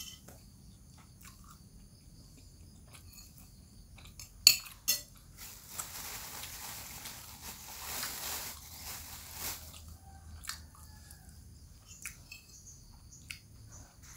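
A person chewing a mouthful of food, with a metal spoon clinking against a bowl; two sharp clinks come about four and a half seconds in, and smaller scrapes and clinks follow.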